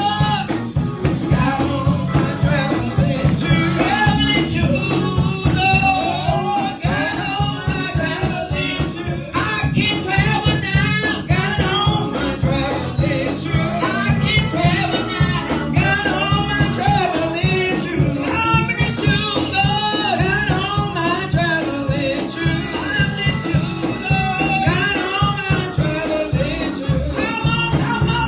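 Gospel praise music: voices singing over a band with a tambourine shaken in a steady rhythm.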